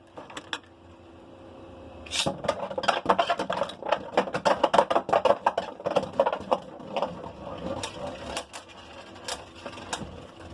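Two Beyblade Burst tops launched into a plastic stadium about two seconds in, then clashing in a rapid run of sharp clacks that thins out to occasional knocks near the end as they spin on.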